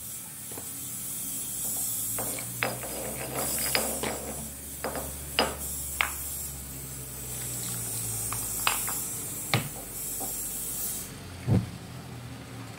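Vegetables and water sizzling in a hot frying pan: a steady hiss with scattered crackling pops, the hiss stopping abruptly near the end. A louder sharp click comes just after the hiss stops.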